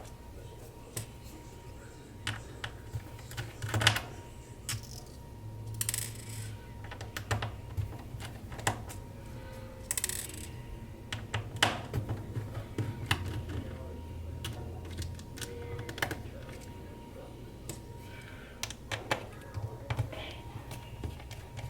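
Irregular small clicks and taps of a screwdriver working out the six screws that hold the display onto a MacBook Pro A2338's bottom case, with a faint steady hum underneath.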